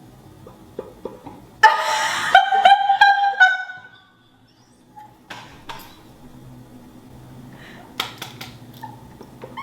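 A person imitating the clicking of kitchen tongs with her mouth: a short loud vocal burst, then a few sharp separate clicks.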